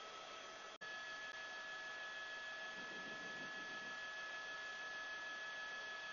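Steady electronic hiss and hum on the audio line, with several high steady tones. It cuts out for an instant under a second in, after which one tone moves higher and stays.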